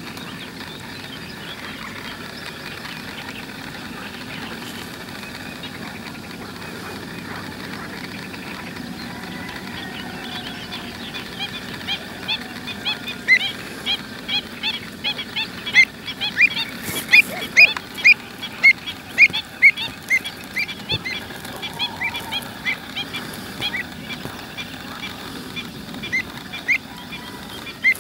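Pied avocets calling: a long run of short, sharp bird notes, about two a second, starting about halfway through and tailing off near the end, over a steady background hiss.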